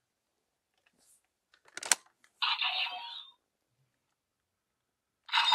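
A sharp plastic click about two seconds in, then a short electronic sound effect from a Kamen Rider Revice DX toy's speaker lasting about a second. Near the end another, louder electronic sound effect with sweeping tones starts.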